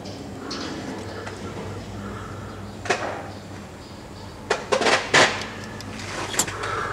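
Plastic trim covers in a Tesla Model S front trunk being handled and unclipped: a click about three seconds in, a quick cluster of knocks and rattles a second and a half later, and another click near the end.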